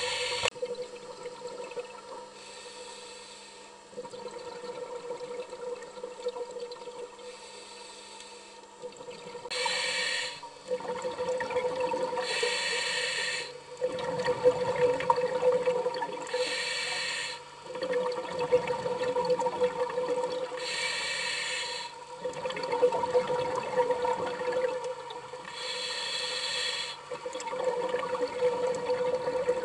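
Scuba diver breathing through a regulator underwater: a rush of hissing and bubbling about every three to four seconds as air is drawn in and breathed out, over a steady low hum.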